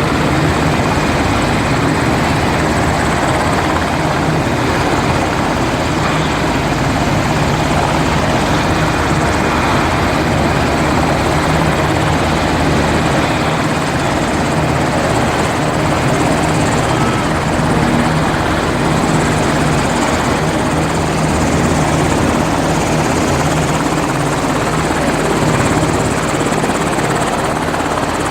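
Helicopter running, its rotor and turbine engine making a loud, steady noise.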